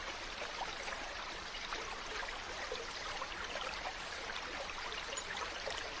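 Mountain stream flowing: a steady rushing of water with many small, brief splashes and trickles through it.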